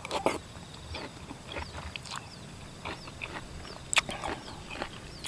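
Close mouth sounds of eating peeled rambutan in a chilli-lime syrup: chewing and wet smacking in short clicks, with a metal spoon clinking against a clay bowl, sharpest about four seconds in.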